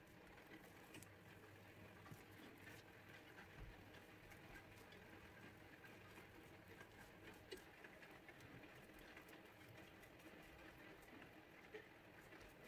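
Faint pattering and light taps of a silicone pastry brush dabbing thin batter onto a hot non-stick frying pan, very quiet throughout.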